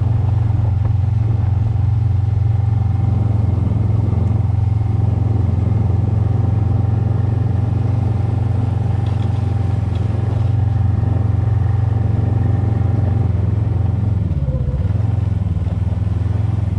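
Snowmobile engine running at a steady speed, a loud, even drone whose note dips briefly and comes back up near the end.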